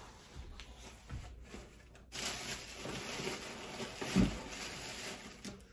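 Rustling handling noise from a woven basket and fabric being moved about, with one soft low thump about four seconds in.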